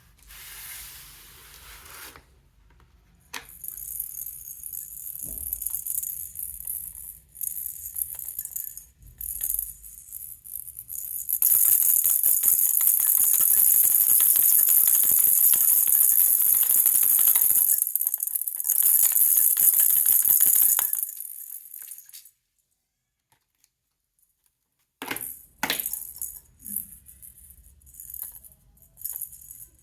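Baby rattle being shaken, beads rattling inside. Short irregular shakes give way, about eleven seconds in, to some ten seconds of fast continuous shaking. After a pause of about three seconds, the short shakes start again.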